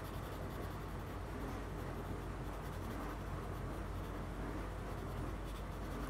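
Black watercolor pencil scratching and rubbing on textured watercolor paper as dark shadow areas are shaded in, over a steady low hum.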